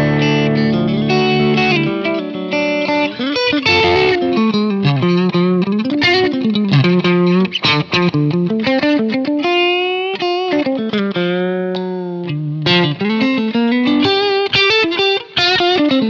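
Telecaster-style electric guitar played through a DSM Humboldt Simplifier MK2 preamp with the gain dialled back to an almost clean tone with a little grit. A held chord opens it, then single-note lead lines with bent notes.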